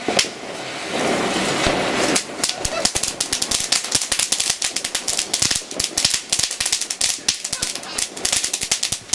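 Ground firework burning on paving: a hissing spray for about the first two seconds, then rapid, irregular crackling, many small pops a second.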